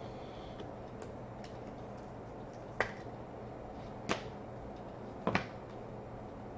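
Fleer Showcase hockey trading cards being flipped through by hand, giving three sharp card snaps a little over a second apart, the last one doubled, over a faint steady hum.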